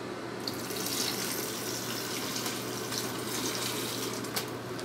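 Water laced with chlorine poured in a steady stream from a plastic basin into a plastic bag in a bucket, splashing onto the cut celosia stems inside.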